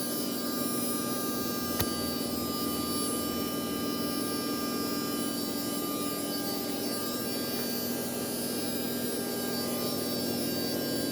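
Steady machine hum with several constant high whining tones over a noisy background, broken once by a sharp click about two seconds in.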